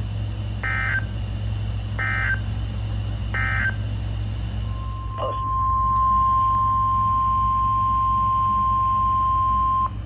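NOAA Weather Radio audio through a Midland weather radio's speaker: three short warbling SAME digital data bursts about 1.3 seconds apart, the end-of-message code after a warning. Then comes the steady 1050 Hz warning alarm tone for about five seconds, which cuts off abruptly.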